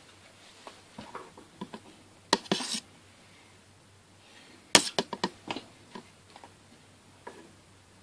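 Clicks and knocks from a homemade wooden joystick worked by hand, its handle rocking in the wooden frame: a cluster of knocks about two and a half seconds in, then a quick run of sharp clicks around five seconds in.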